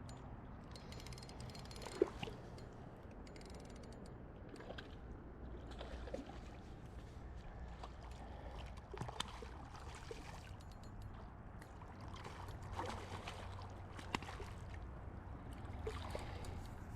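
Faint outdoor ambience: a steady low rumble of moving water or wind, with scattered small clicks and taps from handling. The sharpest tap comes about two seconds in.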